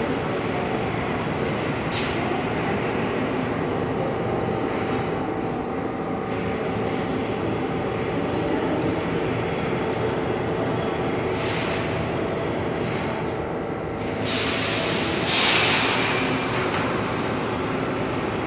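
New York City subway R62A train running, a steady rumble with a few held tones. A sudden louder rush of hissing noise comes in about fourteen seconds in and peaks a second later.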